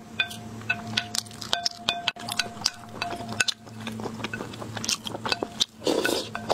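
Wooden spoon scraping and clicking against a large porcelain bowl as leftover sauce and bits are gathered, with many short sharp clicks. Near the end comes a louder slurp as the food is sucked off the spoon.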